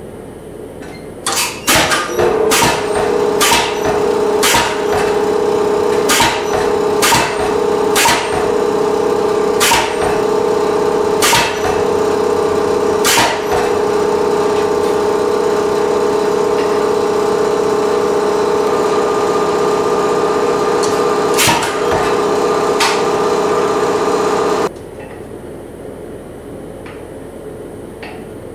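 Pneumatic power hammer striking a red-hot steel slip hook in a bending jig: sharp single blows about once a second for the first half, then two more later on. Under them runs a steady machine hum with a fixed tone, which stops abruptly a few seconds before the end.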